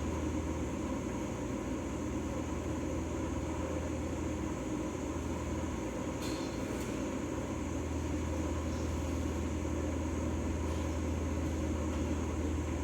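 Steady low mechanical hum, with two faint clicks about six seconds in.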